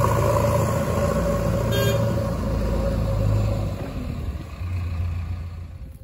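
Diesel engines of a Mahindra Arjun 555 tractor and a JCB 3DX backhoe loader running at low speed, a steady low hum that gradually fades toward the end. A short high-pitched sound comes about two seconds in.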